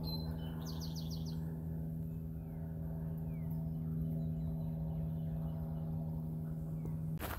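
A steady low hum held on one unchanging pitch with overtones, cutting off abruptly near the end. A bird's quick trill comes about a second in, and a few faint bird chirps come later.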